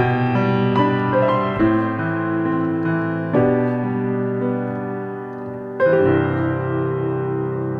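Slow instrumental piano music: held chords struck one after another, with a fresh, louder chord about six seconds in.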